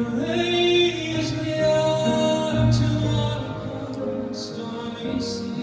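Male singer performing live into a microphone, accompanied by a grand piano and a small string ensemble with cello and violins. His voice slides up into a held note just after the start.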